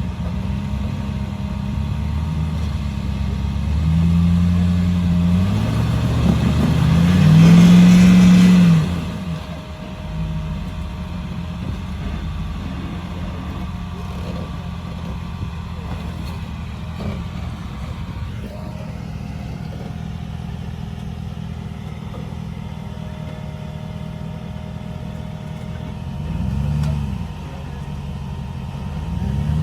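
Jeep engine revving up hard for a few seconds, with a rushing noise at its loudest, then dropping back to a steady low run, with one more short rev near the end.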